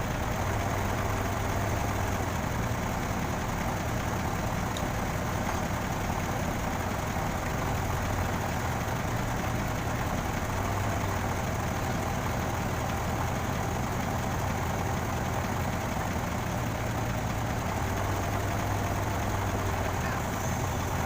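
A crane truck's engine idling steadily, an even low hum that does not change.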